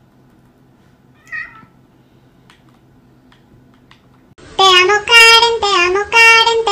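Cat meowing in a quick string of short, loud calls that start suddenly about four seconds in, some notes held steady and some dipping in pitch. Before that there is a quiet stretch with one brief faint cry about a second in.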